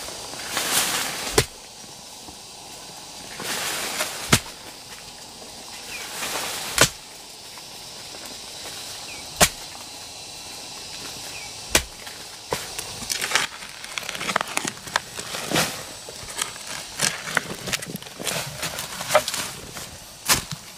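A digging tool strikes hard into soil five times, about every two and a half seconds, each of the early blows coming after a short rustle. From about halfway, lighter, quicker knocks and rustles follow as soil and roots are loosened and scraped out of the hole.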